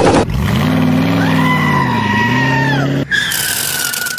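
Sports car engine revving, its pitch rising, dipping and rising again. About three seconds in it cuts to a tyre screech that slides slightly down in pitch.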